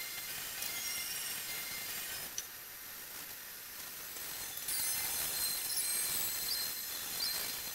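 Paintbrush scrubbing wood stain onto rough, weathered timber beams, the bristles rasping over the grain in runs of strokes. It eases off for a couple of seconds in the middle, then picks up again.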